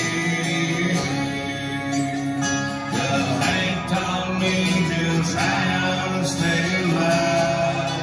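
Live country music led by a strummed acoustic guitar, with sustained melody notes carrying on between sung lines.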